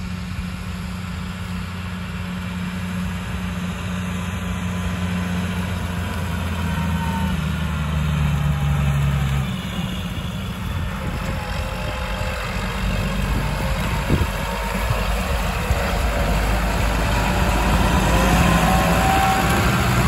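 New Holland 8340 tractor engine running while it pulls a loaded grain trailer. The note is steady for the first half, then becomes rougher and grows louder toward the end as the tractor comes close.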